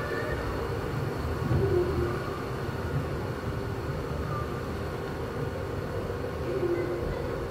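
Steady low rumble and hum of an exhibition hall's room sound, with a brief low tone about one and a half seconds in and again near the end.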